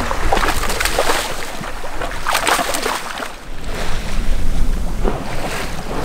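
Wind and sea washing around a sailing boat in open ocean, with several short, sharp splashes.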